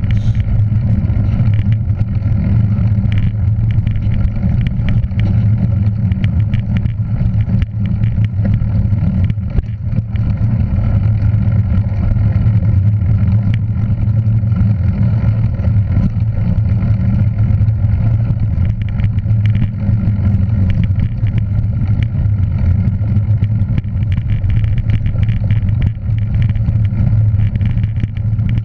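A motor vehicle's engine running steadily at a constant pitch, a low drone with road noise over it and no change in revs.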